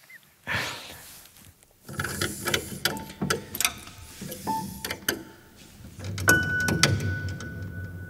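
Irregular clicks and knocks of a grand piano's mechanism being handled, with a couple of brief pitched tones among them. Near the end a single steady high tone starts and keeps ringing.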